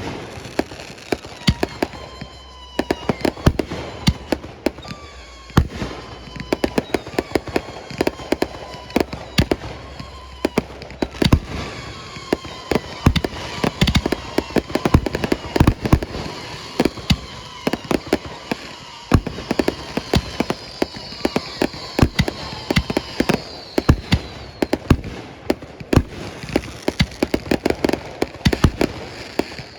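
Fireworks display going off in a rapid, continuous barrage of bangs and crackles, with whistles that slide slowly down in pitch.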